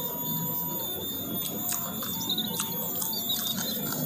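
Eating sounds: chewing with a few crisp crunches of raw vegetables, over soft background music with slow held notes. A few bird chirps in the middle.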